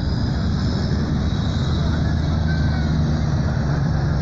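Heavy cabover water tanker truck's diesel engine running steadily as the truck drives onto the dirt track.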